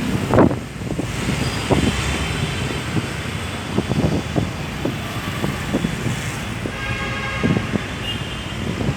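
Strong gusty wind buffeting the microphone in irregular thumps over a steady outdoor rush, with road traffic mixed in.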